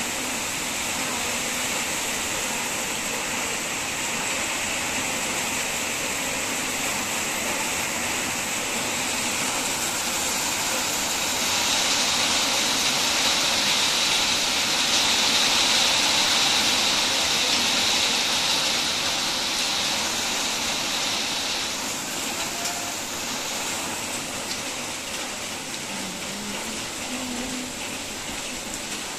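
Heavy rain pouring down on a street, a steady hiss that swells louder for about ten seconds in the middle and then eases back.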